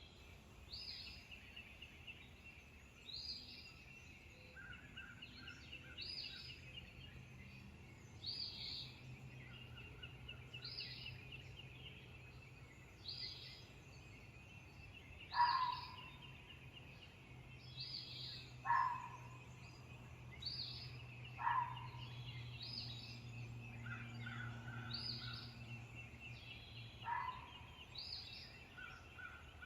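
Dawn chorus of songbirds, one repeating a short high phrase about every two seconds over a steady trill. A fox barks four times in the second half, short sharp single barks a few seconds apart; these are the loudest sounds.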